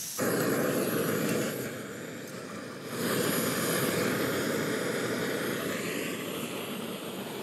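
Budget screw-on canister gas camping stove burning at full flame under a pot of water, a steady noisy roar from the burner that dips for about a second around two seconds in and then returns.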